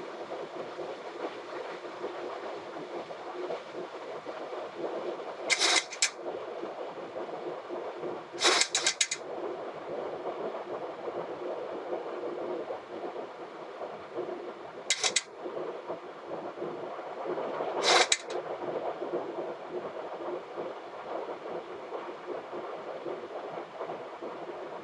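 Steady rush of airflow and air-conditioning noise on a Boeing 737 flight deck during the approach, broken four times by short, sharp bursts of hiss.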